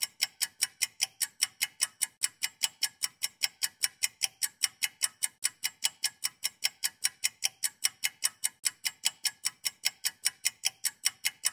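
Steady ticking timer sound effect, fast and even at about five ticks a second, counting down the quiz time.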